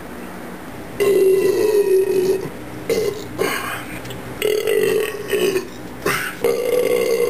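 A man belching loudly, several burps in quick succession: a long drawn-out one about a second in, then shorter ones, and another long one near the end.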